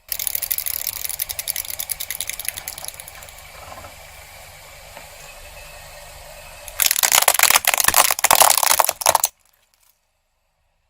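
Dense crackling and crunching of things being crushed and popped. It comes in two loud stretches, one at the start and one from about seven to nine seconds in, with a softer crackle between, and it cuts off suddenly.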